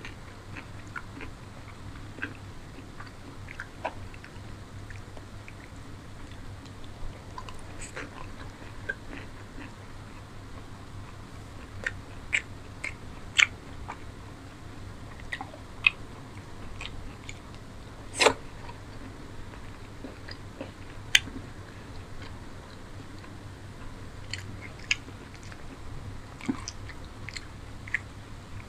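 Close-miked eating by hand: chewing of paratha and chicken curry with many sharp, wet mouth clicks and smacks scattered throughout, the loudest a few seconds past the middle. A faint steady low hum runs underneath.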